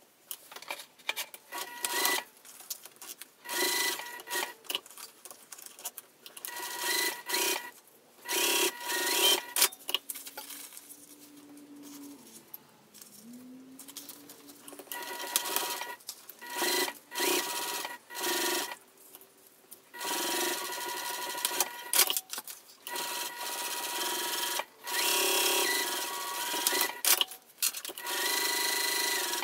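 Juki sewing machine stitching in many short runs of a second or two, stopping and starting again over and over, with fabric rustling as the pouch pieces are turned between runs; a quieter stretch of handling comes about a third of the way in.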